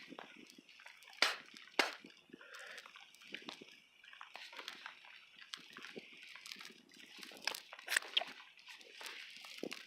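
Rain falling steadily, with a few scattered sharp taps and knocks.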